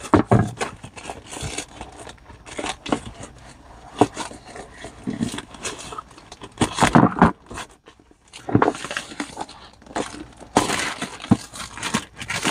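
Plastic shipping mailer crinkling and rustling in irregular bursts with a few sharp clicks as it is opened and a cardboard box is slid out of it.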